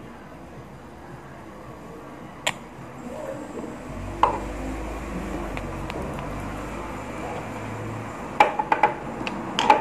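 Small clicks and taps of a glass nail-polish bottle and its brush cap being handled and set down on the table: a single click about two and a half seconds in, another near four seconds, and a quick cluster of clicks near the end. A low hum runs underneath in the middle.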